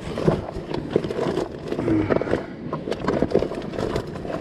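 Close-up handling of fishing tackle: a run of irregular clicks, taps and scrapes as the line is cut and a clip is fitted to the rig.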